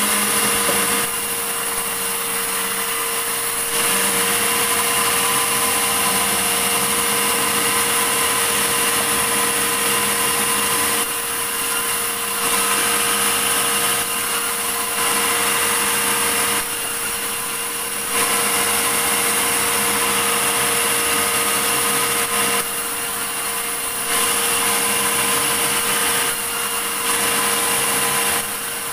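Sawmill saw running steadily, louder and harsher in stretches of several seconds while it cuts through a large medang log, dropping back briefly between cuts.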